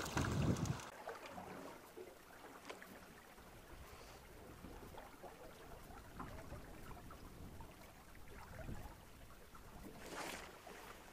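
A fish splashing into the river beside an aluminium boat as it is let go, then quiet river water lapping along the hull, with a brief rustle near the end.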